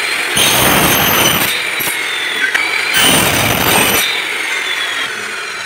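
An electric miter saw cutting aluminium profile. The motor whines high throughout, and there are two harsh screeching cuts through the metal, about half a second in and again around three seconds in. The sound eases off after the second cut.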